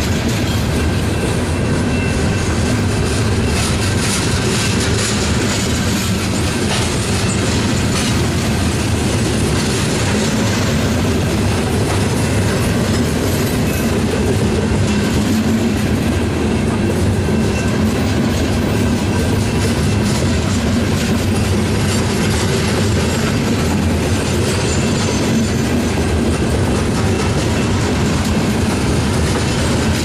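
Loaded coal cars of a freight train rolling past close by: a steady rumble of steel wheels on rail, with scattered clicks over the rail joints and a faint high squeal now and then.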